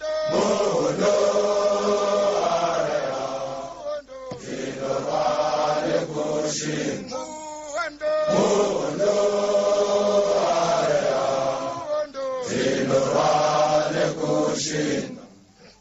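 A chorus of men chanting a soldiers' marching song in unison, in long held phrases of about four seconds with a short breath between each.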